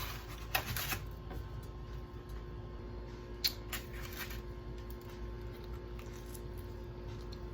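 A few brief light rustles and clicks, two short clusters about half a second in and a little after three seconds in, over a steady low hum.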